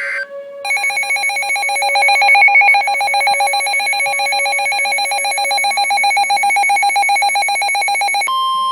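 Emergency alert tone announcing a new tornado warning: a loud electronic alarm trilling rapidly at one steady pitch with bright overtones. Near the end it switches to a single steady warning tone, the NOAA Weather Radio alert tone.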